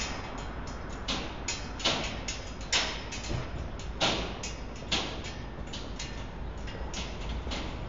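Elevated steel railway structure ticking and creaking: sharp, irregular metallic clicks, a few a second, over a steady low rumble, typical of the track as a train approaches.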